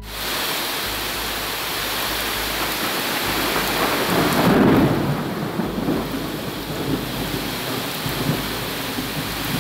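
Torrential storm rain and floodwater rushing through a street: a steady rush of noise that swells louder for a moment about halfway through.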